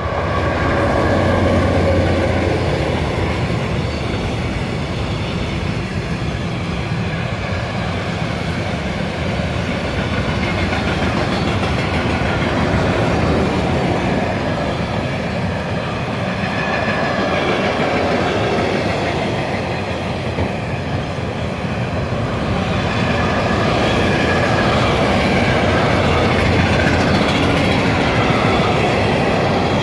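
Siemens Vectron diesel locomotive passing close by at the head of a long freight train, its engine hum loudest about two seconds in, followed by the steady rumble and clickety-clack of the freight wagons' wheels over the rails.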